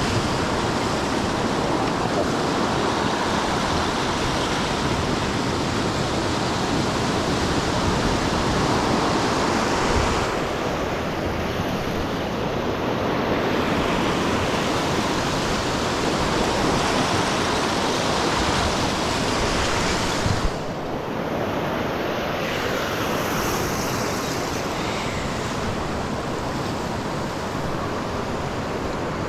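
Lake Michigan surf and storm wind, a loud steady rush of noise with no distinct events, easing slightly in the highest pitches twice, about ten and twenty seconds in.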